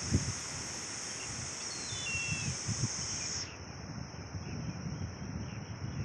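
Steady high-pitched insect drone, whose upper part drops out about three and a half seconds in. A short bird call steps down in pitch about two seconds in, over low wind rumble on the microphone.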